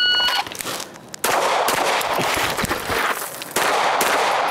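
A shot timer's start beep, a short steady electronic tone, followed about a second later by pistol shots fired during a movement drill, mixed with the loud rustle and thud of the shooter moving.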